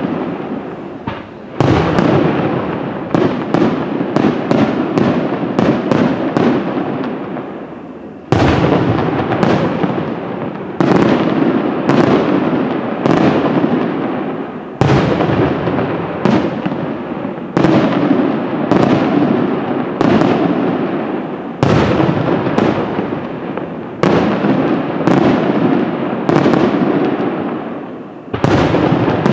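Aerial firework shells bursting in quick succession, sharp bangs about one or two a second, each trailing off in echo. A short lull about eight seconds in ends in a loud bang.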